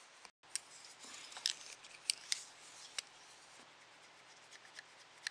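A multi-tool being handled: a scatter of faint, sharp clicks and light scrapes as its blade is moved.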